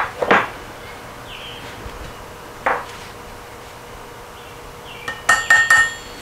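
Hammer blows driving parts onto the nose of a Porsche 912 crankshaft through a metal driver, each blow a sharp knock with a metallic ring. One blow comes at the start, a single one near the middle, then a quick run of about five near the end.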